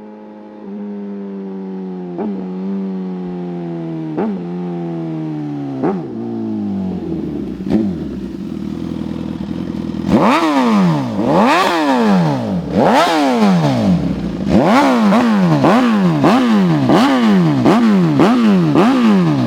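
Suzuki GSX-S1000's inline-four engine through a full exhaust system with a titanium HP4-style muffler. The revs sink slowly over several seconds, with a few sharp pops from the exhaust. Then comes a run of quick, hard throttle blips, about one a second, each rising and dropping straight back, with a deep note.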